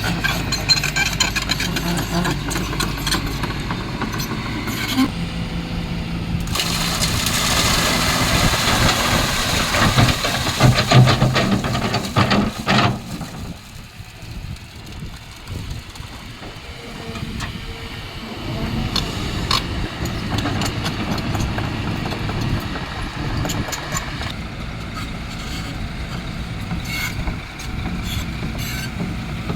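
Kobelco excavator's engine running at a construction site, growing louder and noisier for several seconds in the middle before dropping back to steady running.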